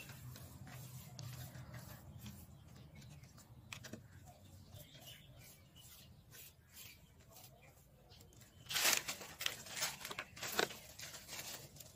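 Rustling and scraping as hands handle a potted clump of grassy plant, its leaves and the soil around its base, in many short bursts, with louder rustling about nine seconds in and again near the end.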